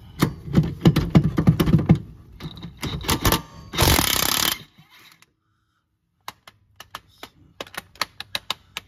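Cordless impact wrench hammering in rapid bursts on a rear sway bar link nut to break it loose, the bolt held from turning by locking pliers. After a short gap comes a run of separate sharp metal clicks as the loosened parts are handled.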